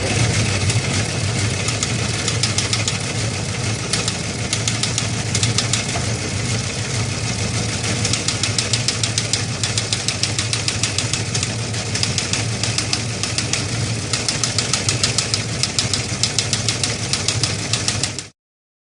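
A machine running steadily with a low hum and fast, even ticking, cutting off suddenly near the end.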